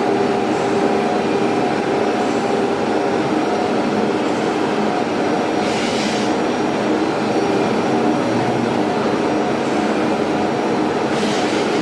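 Nesting CNC woodworking router working, a steady mechanical running noise with a few steady tones in it. Two short hisses cut through, about halfway through and again near the end.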